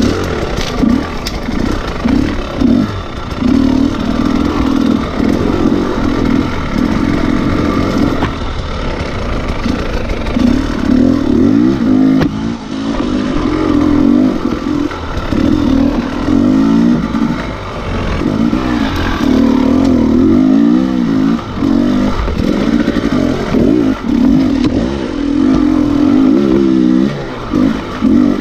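Husqvarna TE300 two-stroke dirt bike engine under a riding load, revving up and down over and over as the throttle opens and closes, with a few brief dips in level.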